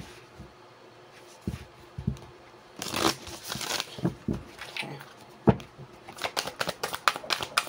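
Deck of divination cards being shuffled by hand: a few scattered knocks and a rustle at first, then a fast run of card snaps in the last couple of seconds.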